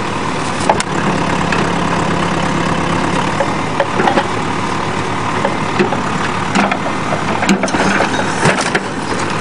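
Tractor backhoe's engine running steadily while its bucket crushes the body of a van, with scattered sharp cracks and crunches of breaking metal.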